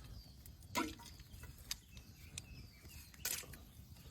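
A few sharp knocks and clicks from handling cooking gear and fish while a stew is being set on, the loudest about a second in and another near the end, over a faint low steady rumble.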